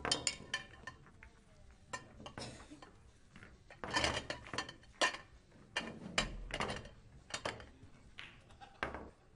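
Pool balls clacking against one another as they are taken from the pockets and gathered into the triangle rack for a straight-pool re-rack: sharp, irregular clicks in short clusters.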